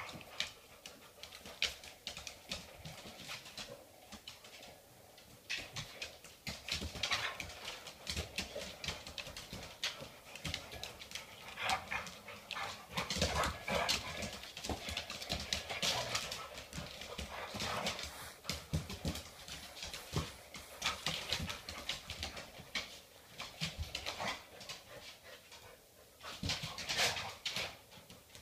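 A springer spaniel and a black lab play-wrestling on a hardwood floor: claws clicking and scrabbling, and paws knocking, in a quick, irregular patter.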